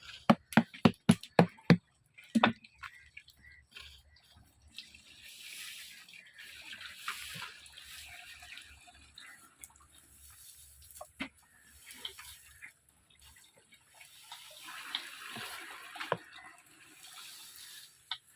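A quick run of about eight knocks, then spells of liquid splashing and pouring: sugarcane juice being handled for jaggery making.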